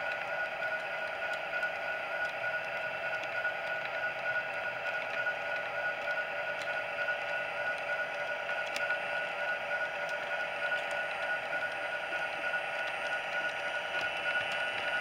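Model train rolling steadily past on the layout track, its motor and wheels making a steady whine with several held tones.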